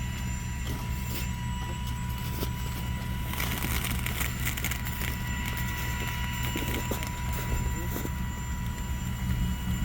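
A steady low engine hum, with scattered rustling and light knocks, thickest about three to four seconds in.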